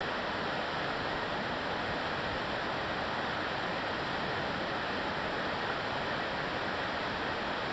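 River whitewater rapids rushing steadily, a constant even noise of fast water over rocks.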